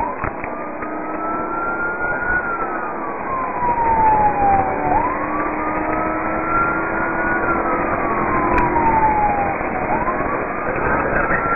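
Police car siren on a slow wail, each rise and fall taking about five seconds, over the steady road noise of the moving cruiser.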